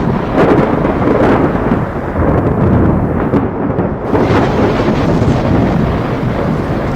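Thunder rumbling continuously through a thunderstorm, swelling in several loud rolls.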